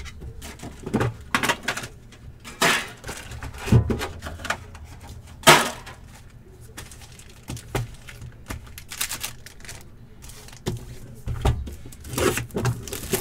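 Trading cards being handled by hand: irregular clicks, taps and snaps as cards are flipped through and set down, the sharpest snap about five and a half seconds in.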